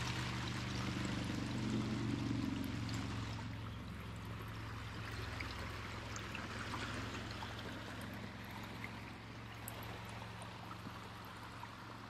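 Running water of a small stream, a steady rushing that grows fainter from about three seconds in, over a steady low hum.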